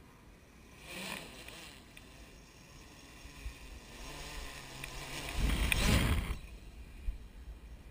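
F550 hexacopter's six brushless motors and propellers buzzing, growing louder as it swoops down and passes directly over the microphone about five and a half seconds in. The propeller downwash buffets the mic with a low rumble, and the sound falls away quickly after the pass.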